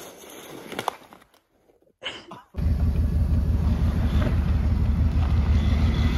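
A car engine running hard as a stuck sedan tries to drive out of snow and ice: a loud, steady low drone that starts suddenly about two and a half seconds in. Before it there are only faint outdoor sounds, with one sharp click about a second in.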